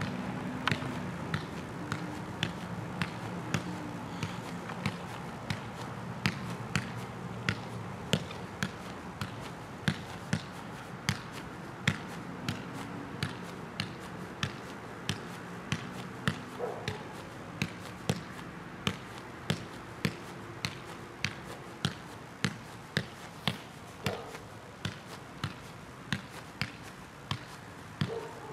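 A size one soccer ball being juggled off a foot, a steady run of light thuds at about two touches a second.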